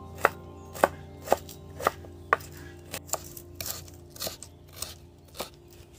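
Kitchen knife chopping shredded red cabbage on a wooden cutting board. Sharp chops come about two a second at first, then lighter and more frequent in the second half.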